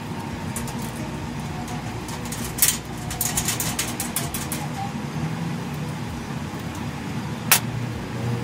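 A quick run of sharp metallic clicks and light knocks from hand tools and parts during assembly work on a motorcycle's front end, with one louder sharp click near the end, over a steady low background hum.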